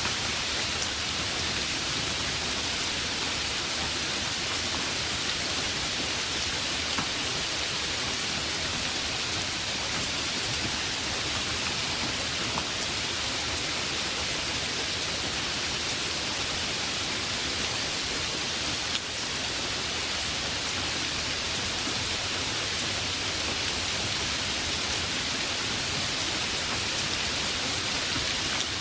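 Heavy rain falling steadily: a dense, even hiss of rain with a few separate drop hits standing out now and then.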